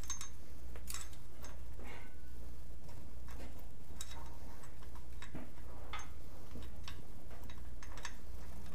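Irregular light clicks and clinks of small metal parts and tools being handled, over a steady low hum.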